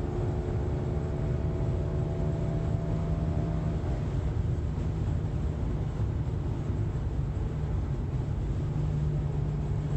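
A 2007 BMW 525xi driving at speed, with steady road and drivetrain rumble and a faint steady whine over the first few seconds. The owner is hunting a speed-related noise that he suspects is an early-stage worn CV axle.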